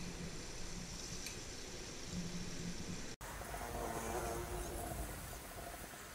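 Hot oil sizzling steadily in a wok as battered chicken pieces deep-fry, with a faint clink or two of the wire strainer. The sound cuts out for an instant about three seconds in; soon after, a faint pitched call is heard in the background.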